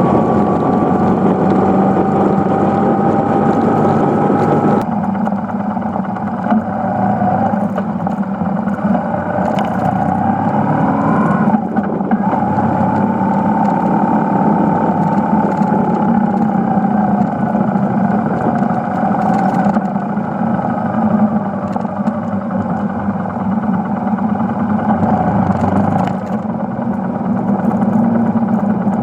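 BMW R1150GS's air/oil-cooled boxer twin running under way, heard from a handlebar-mounted phone. Its pitch climbs and falls, with a change in sound about five seconds in and a short break near twelve seconds.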